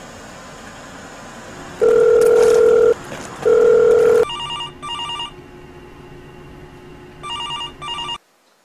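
Two long, loud steady beeps, followed by a telephone ringing in a double-ring pattern, two rings, then the ringing cuts off.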